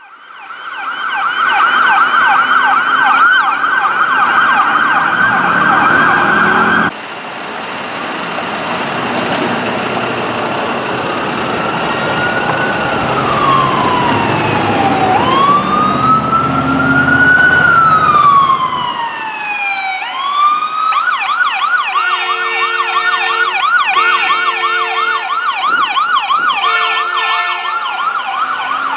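Emergency vehicle sirens on a responding convoy. First comes a fast yelp, which cuts off abruptly about seven seconds in. Next a slow wail rises and falls, then a fast yelp returns, with three short blasts of a horn over it past the two-thirds mark.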